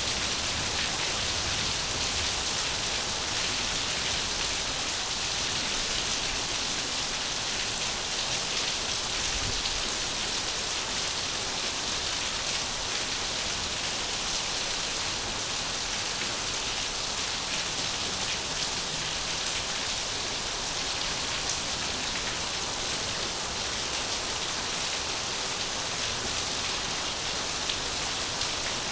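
Steady rain falling, an even hiss with a faint patter of drops throughout.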